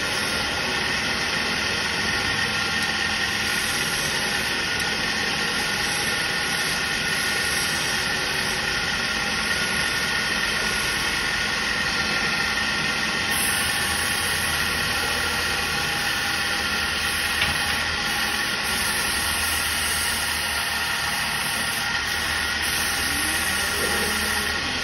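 Power wood lathe running steadily with a constant motor whine, a hand scraping tool cutting the spinning wooden spindle.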